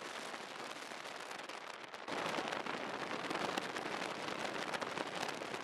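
Rain falling, an even crackling hiss of many small drops that gets louder about two seconds in.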